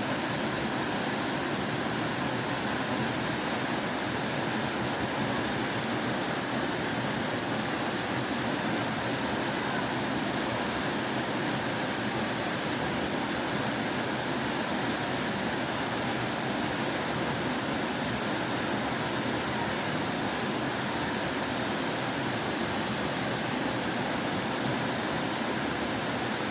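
Steady rushing of flowing water, an even unbroken wash of sound.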